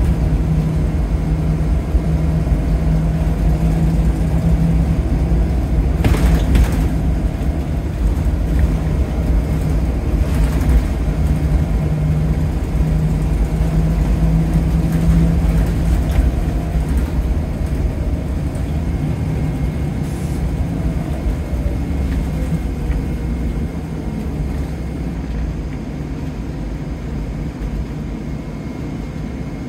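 Scania L94UB Wright Solar single-decker bus under way, its five-cylinder diesel running with a steady low hum heard from inside the saloon. There are two brief rattles about six and ten seconds in, and the engine note eases off near the end.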